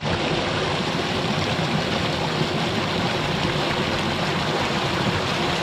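Water pouring over a small drop in a narrow concrete channel and splashing into the channel below: a loud, steady rush of water.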